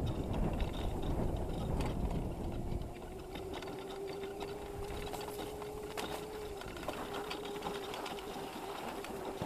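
Razor MX650 electric dirt bike's chain-driven electric motor whining at a steady pitch while riding over grass. A low rumble underneath eases about three seconds in.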